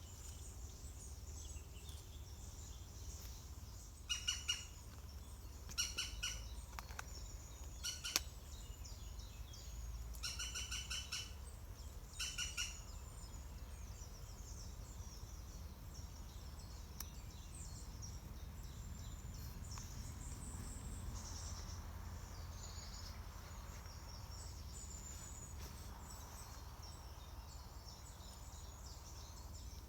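Green woodpeckers calling: about five short bursts of rapid, ticking calls between about four and thirteen seconds in, over faint high chirping throughout.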